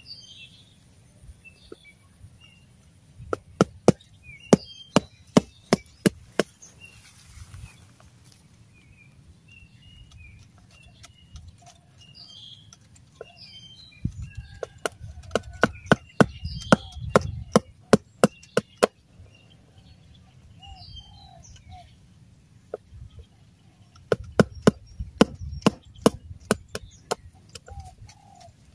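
Cleaver chopping limes on a round wooden chopping block: three runs of quick sharp knocks, about three a second. Small birds chirp throughout.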